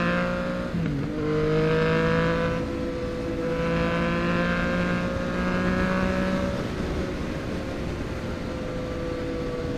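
Yamaha MT-09 three-cylinder engine through a Mexx full exhaust, accelerating in riding mode A. Its pitch climbs, dips briefly with a gear change a little under a second in, and climbs again. About six and a half seconds in the throttle eases off and the engine holds a steadier, quieter tone.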